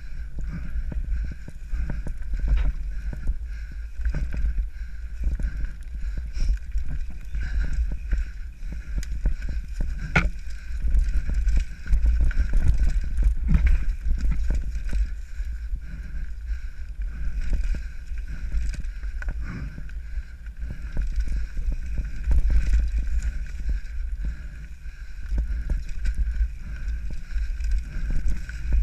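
Wind rumbling on an action camera's microphone during a fast mountain-bike descent of a dirt forest trail, with scattered sharp knocks and rattles from the bike over the rough ground.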